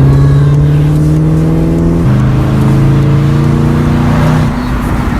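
2014 Chevrolet Camaro ZL1's supercharged V8 pulling under moderate throttle. Its pitch climbs slowly, dips at a gear change about two seconds in, climbs again, then eases off near the end.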